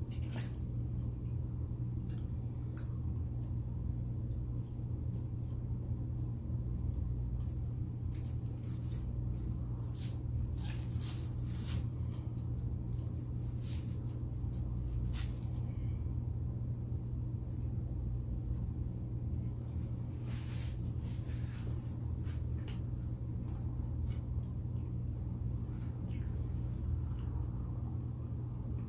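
Close-miked eating sounds: scattered soft clicks and smacks of chewing and mouth noises, with a denser run about ten seconds in, over a steady low hum.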